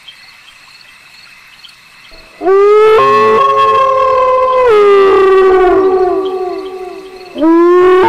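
Faint cricket chirping, then about two and a half seconds in wolves start howling: a howl rises sharply and is held, with other howls overlapping at different pitches, and it slides lower and fades out by about seven seconds. Another howl rises sharply near the end.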